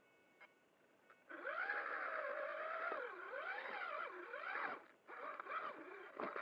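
Traxxas Summit RC truck's electric motor and drivetrain whining after about a second of near silence, the pitch rising and falling as the throttle is worked. It drops out briefly near the end and starts again.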